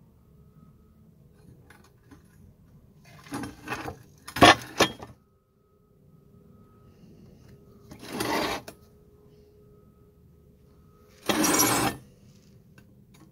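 Metal clinking and rattling, a few short knocks about four to five seconds in that are the loudest sounds, then two short scraping rushes, the second near the end.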